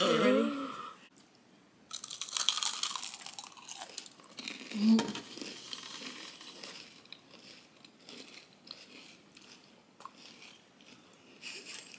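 Crunching bites into ice cream shaped like fried chicken, its crisp corn-flake crumb coating breaking, followed by quieter chewing. A short vocal exclamation comes at the start and a brief hummed "mm" about five seconds in.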